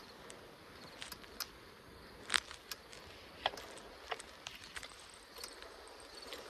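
Bicycle riding along a road: a steady hiss of tyres and air under irregular light clicks and rattles from the bike over bumps, with one louder knock about two seconds in.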